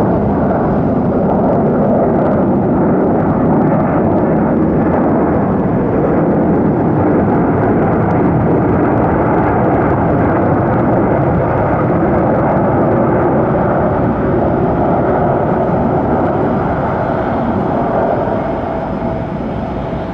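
Aircraft engines running loud and steady as a plane passes close by, easing off slightly near the end.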